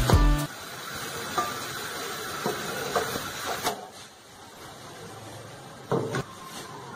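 Kheer (sweetened milk) boiling in an aluminium pot on the stove: a steady bubbling hiss with a few light clinks, which thins out a little over halfway through. Background music ends in the first half-second, and a louder knock comes about six seconds in.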